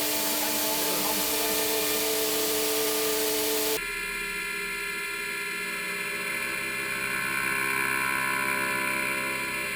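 DMG 5-axis CNC milling machine cutting, with a spray-like hiss and steady spindle tones. About four seconds in the sound changes abruptly to a steadier whine made of several held tones, with much less hiss.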